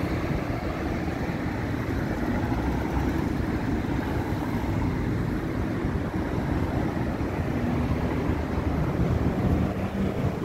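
Road traffic on a busy multi-lane city road: cars and vans driving past, a steady low rumble of engines and tyres.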